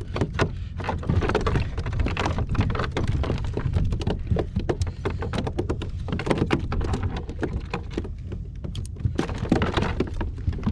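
Rapid, irregular tapping and knocking on the plastic deck of a fishing kayak as freshly caught mackerel are handled, over a low wind rumble on the microphone.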